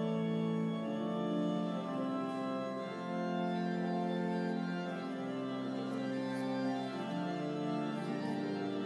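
Organ music: slow, held chords that change every second or two.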